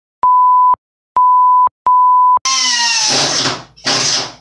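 Three short bleep tones, each half a second at one steady pitch and cut off sharply, edited into the sound track. Then, about two and a half seconds in, a power tool cutting into the sheet-metal cabinet side in two loud bursts with a shrill hiss and a whine that drops at first and then holds.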